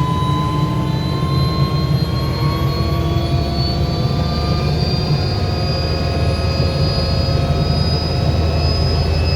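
Helicopter running: a steady low rotor and engine drone, with a turbine whine climbing slowly in pitch.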